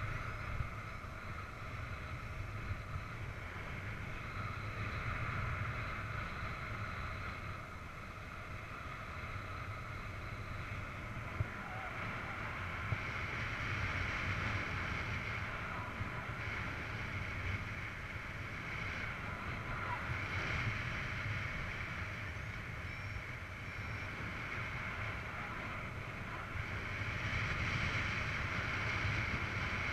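Wind noise on the microphone from the airflow of a paraglider in flight: a steady rush that swells and eases a little, with a couple of brief clicks near the middle.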